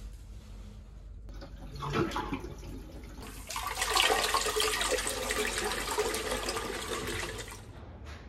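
Toilet flushing: a brief surge of water about two seconds in, then water rushing and swirling down the bowl for about four seconds before it stops.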